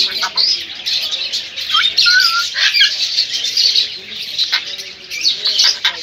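Many caged birds chirping and squawking at once in a dense, unbroken chatter, with a short whistle about two seconds in.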